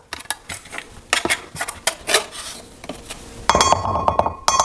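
Metal spoon tapping and scraping against a bowl while spooning in dry ingredients. A louder clatter comes about three and a half seconds in, with a ringing tone that lasts about a second.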